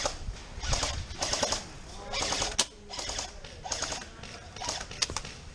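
An airsoft player's crunching, rustling footsteps at a walking pace, with a few sharp cracks about halfway and near the end, typical of airsoft gun shots.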